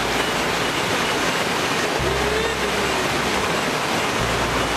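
Steady rush of a mountain stream's water tumbling over rocks.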